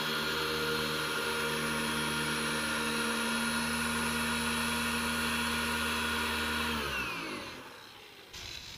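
Handheld electric car polisher running steadily as it buffs all-in-one polish into a car's paint, then switched off about seven seconds in, its hum falling in pitch as it spins down.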